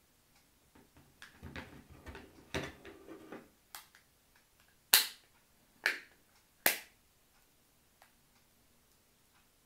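Clear plastic case being fitted onto an iPhone 13 mini: a couple of seconds of scraping and knocking as the phone is pushed in, then four sharp snaps as the case's edges pop over the phone, the loudest about five seconds in.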